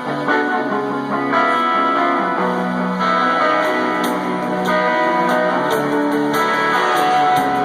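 Amplified music with guitar-like plucked notes, held and shifting in pitch every second or so, with a few sharp clicks near the end.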